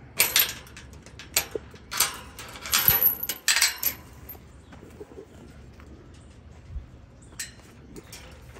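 Metal gate chain rattling and clinking against a steel fence post as it is unhooked, in several short bursts over the first four seconds, then a few light clinks near the end.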